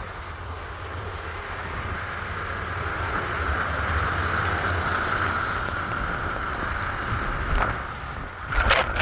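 A car driving past on a snow-covered road. Its noise swells to a peak about halfway through and fades away, with a few sharp bumps near the end.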